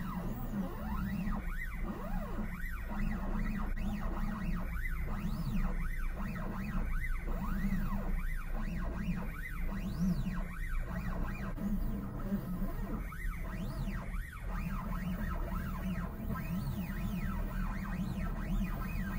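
Stepper motors of a 3D-printed DIY Dremel CNC running as a pen plotter, whining in tones that rise and fall in pitch with each short move as the axes speed up and slow down, over a steady low hum.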